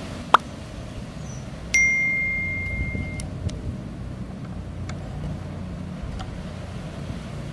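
Sound effects of a subscribe-and-bell button animation. A short sharp pop comes first, then a bell-like ding rings on one high tone for about a second and a half as it fades, followed by a few faint clicks, over a low steady background hum.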